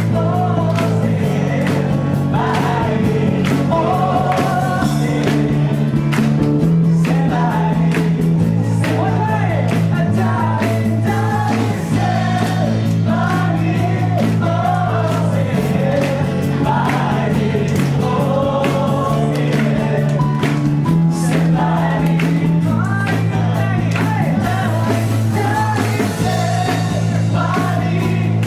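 Live acoustic band music: a male singer on a microphone over a strummed acoustic guitar, with deep held bass notes that change every two to three seconds with the chords.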